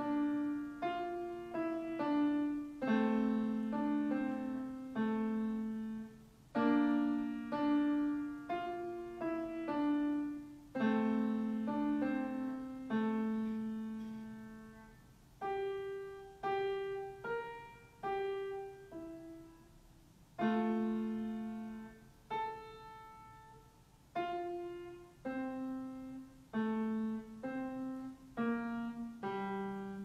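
A child playing a simple Christmas carol on a piano: a plain melody over a few low notes, each note struck and left to ring and fade, in short phrases with brief pauses between them.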